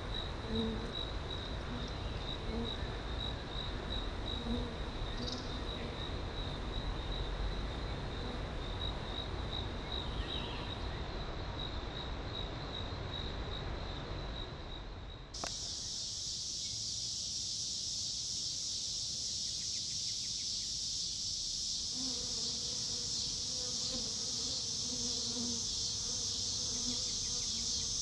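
Summer insects calling. First there is a rapidly pulsing high trill; about halfway through it changes suddenly to a louder, continuous high-pitched insect chorus.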